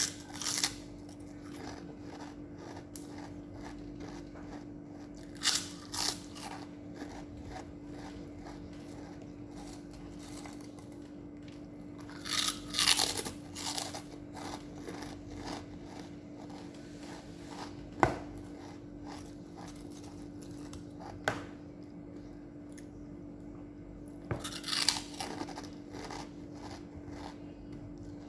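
Crunchy food bitten and chewed close to the microphone, in about six short bursts of crackling crunches with quiet gaps between them, and one single sharp click past the middle. A steady low hum runs underneath.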